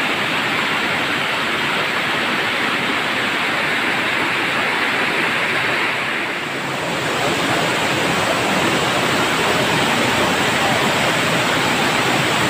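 Waterfall water rushing steadily over rocky ledges. The rush dips briefly about six seconds in, then comes back a little louder and fuller.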